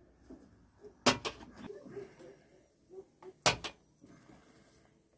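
Cooking pots and dishes being handled: two sharp knocks, about a second in and again halfway through, with lighter clinks and taps between them.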